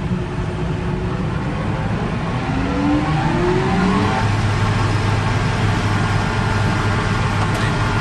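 Tractor engine and its newly fitted mounted mower starting up: a rising whine a couple of seconds in as it comes up to speed, then a steady run.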